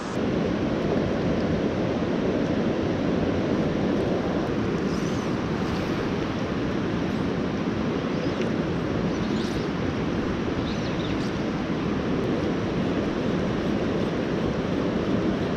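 Steady rushing of a fast river current swirling past rocks, with some wind rumble on the microphone.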